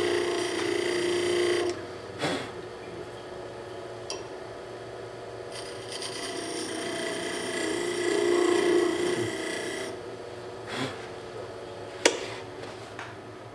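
Wood lathe spinning a wood blank while a beading tool scrapes and cuts beads into it, touching up beads that had flat spots. The cut is heard in two passes: the first stops abruptly about two seconds in, and the second runs from about five to ten seconds. A few sharp knocks fall between and after the passes.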